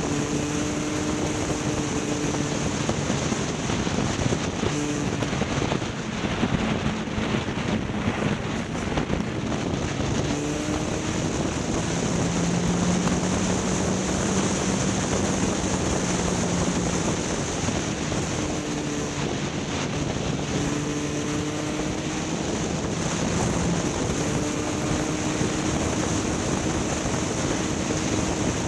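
A vehicle's engine running steadily under way, its drone drifting gently up and down in pitch, under a constant rush of wind noise.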